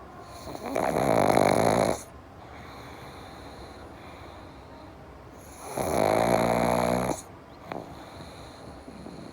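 A sleeping pug snoring: two loud snores about five seconds apart, each lasting over a second, with quieter breathing noise between them. This is the noisy-airway snore typical of the flat-faced breed.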